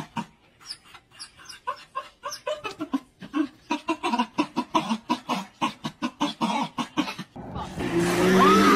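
A small terrier's rapid, short whimpers and grunts, about three or four a second, stopping about seven seconds in. Steady wind-and-water noise takes over near the end.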